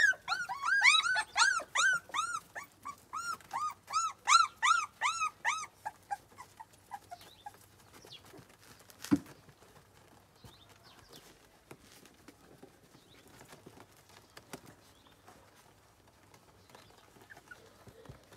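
Young puppy whimpering in a quick run of high-pitched, arching cries, about three or four a second, which fade out about six or seven seconds in. After that there are only faint ticks, and one sharp click about nine seconds in.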